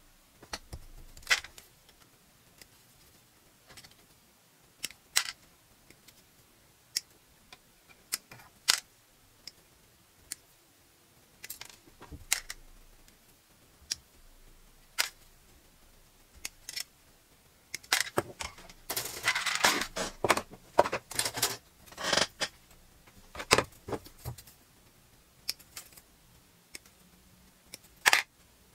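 Hobby side cutters snipping parts of an HG Hyaku-Shiki Gunpla kit off their plastic runners: sharp single clicks every second or two. About eighteen seconds in there are a few seconds of denser plastic clattering and rustling as runners and parts are handled.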